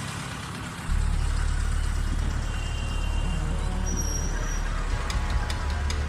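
Road traffic noise, with a deep, steady low rumble that starts suddenly about a second in.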